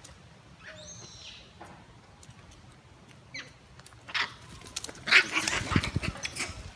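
Macaques calling: a few faint, short, high squeaks, then about four seconds in a louder burst of harsh screeching and scuffling that lasts to the end, with some low thumps mixed in.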